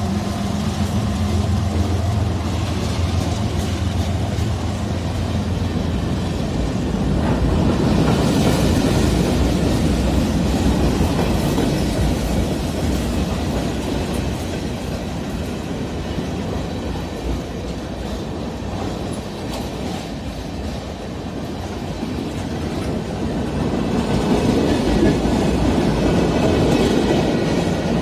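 Freight train cars rolling past at close range, a steady rolling noise with wheels clicking on the rails, swelling louder twice. In the first couple of seconds the low steady hum of the diesel locomotive that has just passed fades away.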